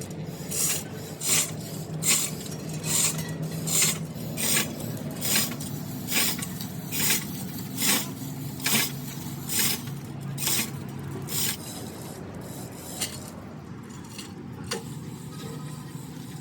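Hand file rasping on metal: about fourteen even strokes, a little under one a second, which stop about eleven seconds in, over a steady low hum.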